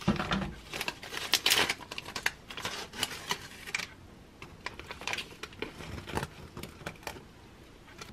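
Snack pouch crinkling and rustling as a hand reaches in and pulls out a rice chip, dense for the first half and then thinning to scattered light clicks.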